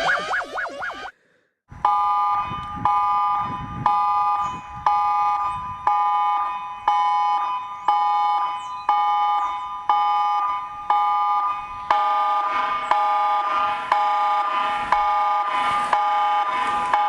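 Emergency broadcast alert tone: a chord of several steady electronic tones that restarts with a sharp attack about once a second and fades between repeats, growing fuller and louder about twelve seconds in. Before it, a fast warbling electronic tone cuts off about a second in, followed by a brief silence.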